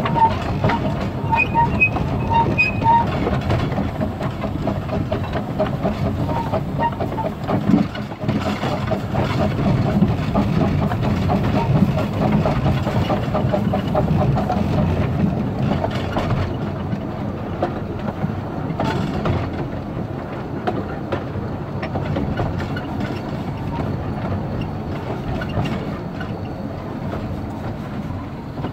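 Kerr Stuart Wren-class narrow-gauge steam locomotive running along the line, heard from its footplate: a steady rhythmic beat with the clatter of wheels on the rails. It eases a little and grows duller in the second half.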